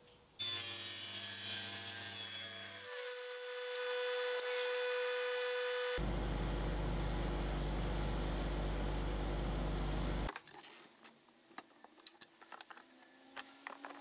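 Woodworking power machine running and cutting wood in three abruptly joined stretches with steady machine tones, the last with a deep hum; then it stops and light clicks and taps of wood being handled follow.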